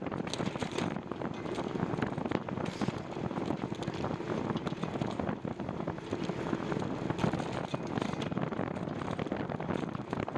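Wind rushing over the microphone of a cyclist riding along, a steady noisy rush with many small crackles, mixed with road noise.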